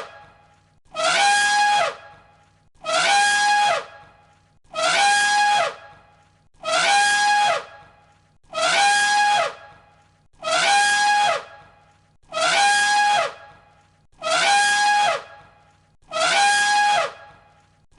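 Elephant trumpeting: the same brassy call repeated about every two seconds, each call about a second long and dropping in pitch at its end.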